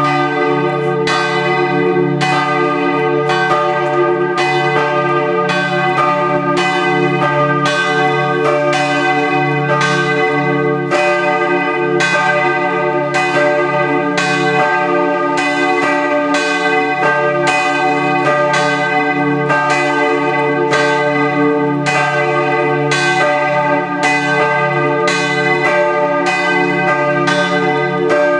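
Full peal of church bells: all the bells in the tower ringing together (a plenum), their strikes overlapping without a break into one continuous clangour, heard from outside the church.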